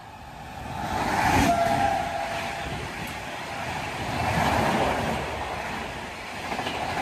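A high-speed express train hauled by a WAP-7 electric locomotive, with LHB coaches, passes close by: a rushing roar of wheels and air. It is loudest as the locomotive goes by about a second and a half in, then settles into the steady rush of the coaches going past, swelling again midway.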